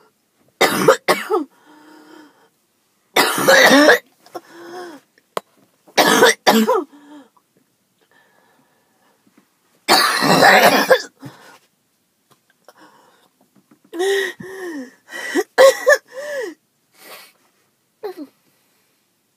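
A woman's hacking coughing fits: about five bouts of harsh coughs with short breaths between, the last a quick cluster of voiced coughs. It is asthma coughing, brought on by skipped breathing treatments.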